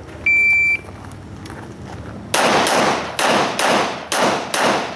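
An electronic shot timer beeps once, and about a second and a half later a pistol fires a fast string of about seven shots, mostly in quick pairs, each crack followed by a short echo.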